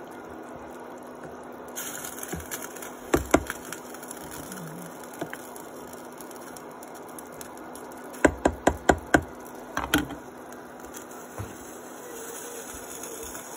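Plastic ladle stirring soup in a stainless steel pot and knocking against the metal: two knocks about three seconds in, a quick run of five knocks at about four a second a little past the middle, then two more. A steady low hum runs underneath.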